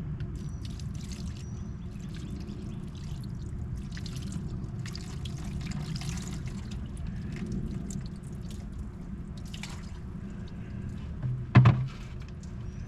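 Water poured over a corroded car battery terminal to rinse off baking soda and corrosion, splashing and dripping in short spells. A single sharp knock near the end.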